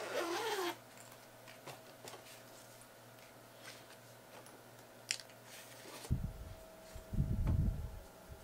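Suitcase zipper pulled, stopping under a second in, then quiet handling of the case: a few light clicks, and soft low thuds and rustling near the end.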